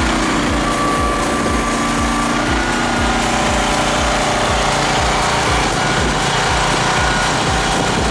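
The small engine of a QH12 Chinese mini excavator runs steadily while the boom and bucket are worked from the joystick levers.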